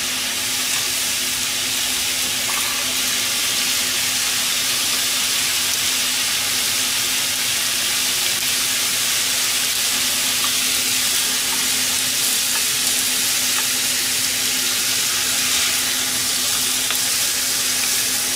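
Thin-sliced pork belly frying in a pan, a steady sizzle as its fat renders out.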